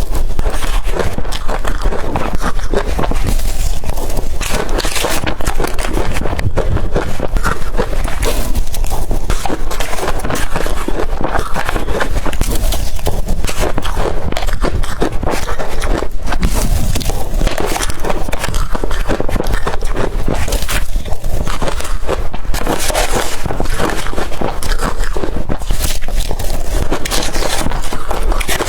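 Blender-crushed ice being bitten and chewed close to the microphone: a loud, continuous crunching made of many small cracks.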